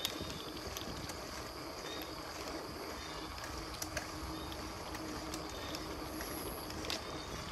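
Outdoor ambience beside a tree-lined track: an even, faint hiss with a thin high steady tone above it and a few soft ticks.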